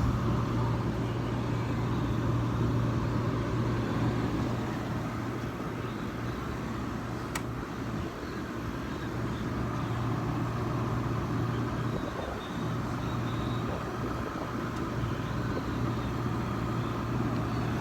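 Window air conditioner running: its compressor gives a steady low hum under the even rush of its fan, with one faint tick about seven seconds in. The compressor doesn't sound very good and the unit is not cooling.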